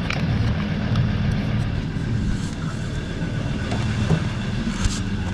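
Vehicle engine idling nearby: a steady low rumble with an even hum, with a few light clicks of handling near the start and near the end.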